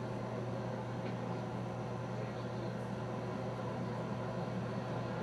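Steady interior noise of a car driving along, engine and road noise running evenly under a constant low hum.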